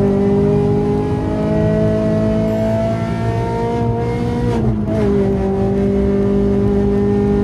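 Renault Clio 197's 2.0-litre four-cylinder engine pulling hard on track, heard from inside the cabin. Its pitch climbs slowly, dips briefly about four and a half seconds in, then holds steady.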